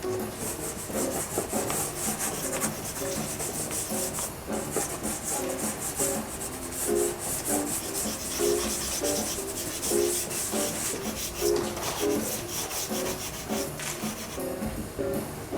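Dry pastel sticks scratching and rubbing in quick, irregular strokes on gritty primed pastel paper, with soft music underneath.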